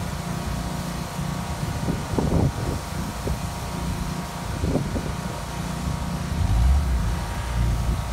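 An engine running steadily, likely driving the pressure washer. Wind buffets the microphone from about two-thirds of the way through.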